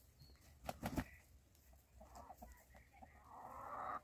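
Chickens clucking softly, with a couple of sharp knocks about a second in and a rougher, noisy call swelling near the end.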